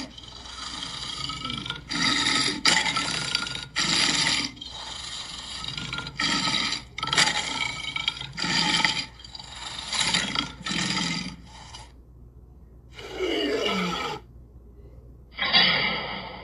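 Lion roaring: a long run of short, rasping grunts about one a second, then a pause and two more roars near the end, one of them dropping in pitch.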